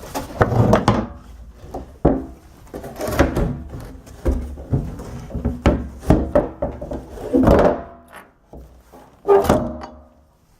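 A boat's front deck being knocked and thumped, with irregular knocks and thuds at uneven spacing, some followed by a short ringing.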